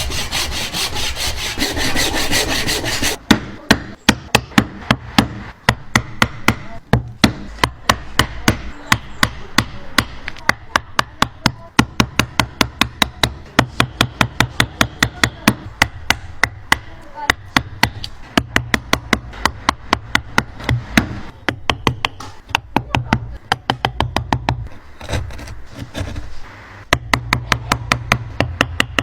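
Wood being worked by hand: about three seconds of dense rasping, then a long run of sharp, regular taps on wood, about two to three a second, over a low hum.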